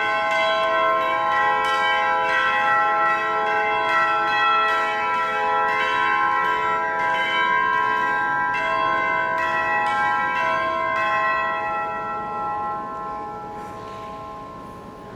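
Orchestral tubular bells struck with a mallet in a steady run of pealing notes, about two or three strikes a second. The strikes stop about eleven seconds in and the bells ring on and fade away.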